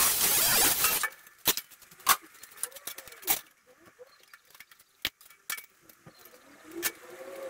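A power tool cutting through sheet steel with a loud hissing noise, which stops about a second in. After it come scattered sharp clicks and clinks of the cut steel panel being handled.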